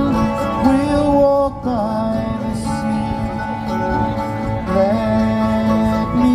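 Live band playing a song on guitars, cello and drums, with long held notes that bend slightly in pitch.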